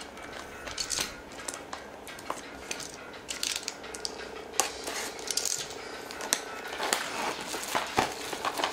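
Utility-knife blade slitting the shrink-wrap along the edge of a plastic Blu-ray case: irregular scratches, clicks and taps of the blade and fingers on the case, then the cellophane crinkling as it is pulled off near the end.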